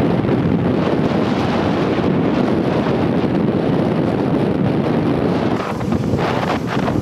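Wind buffeting the microphone in a steady rumble, over a baggage tug towing loaded cargo dollies past.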